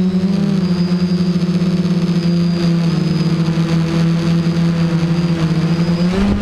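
FPV quadcopter's electric motors and propellers running at speed, a steady buzzing whine heard from the onboard camera, its pitch shifting a little with throttle. A brief rush of noise comes near the end.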